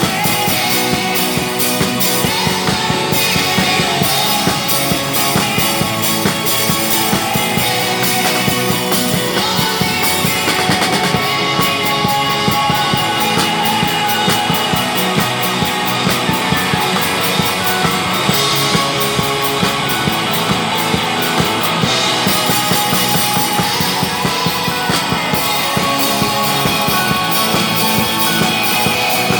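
Drum kit played through a continuous rock piece, with guitar and other pitched instruments alongside.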